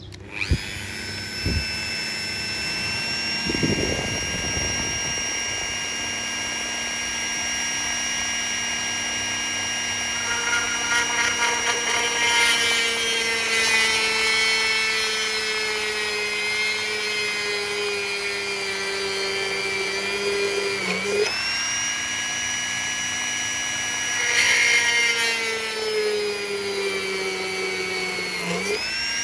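Small electric power-tool motor running with a steady high whine; its pitch dips briefly and recovers twice, about 21 seconds in and near the end.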